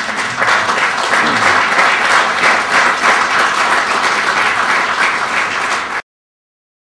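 Audience applauding steadily, cutting off suddenly about six seconds in.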